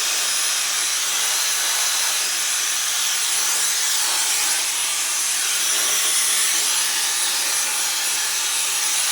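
Dyson hair dryer blowing steadily on its highest heat setting, a constant rush of air with a thin high whine.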